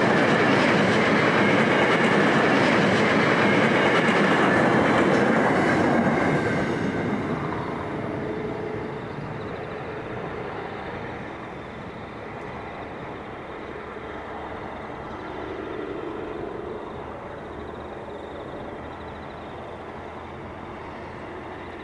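Freight train wagons rolling past at speed on the mainline. The loud rolling noise drops away about six and a half seconds in, leaving a quieter steady rumble.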